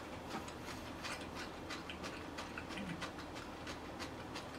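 Quiet eating sounds: a run of light, irregular clicks and smacks.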